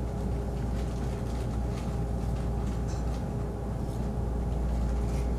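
Steady low mechanical hum with a few faint light taps.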